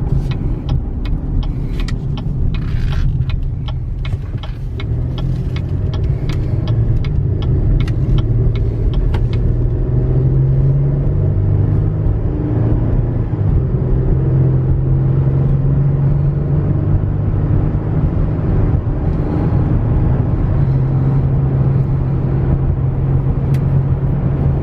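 Inside the cab of a 2016 GMC Canyon pickup driving at road speed: a steady low engine drone with road noise, its pitch stepping a few times around the middle. A run of light clicks sounds through the first several seconds.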